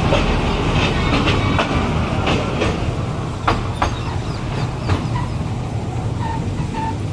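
Small ride-on toy train running along its track, a steady low rumble with irregular clicks of the wheels over the rails.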